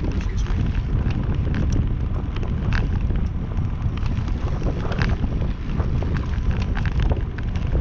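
Wind buffeting the microphone of a camera on a moving bicycle's handlebars, a steady low rumble dotted with scattered small clicks.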